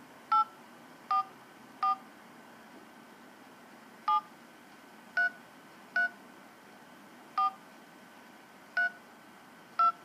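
Phone keypad touch tones as a telephone number is dialled by hand: nine short two-note beeps at an uneven pace, with a longer gap about two seconds in.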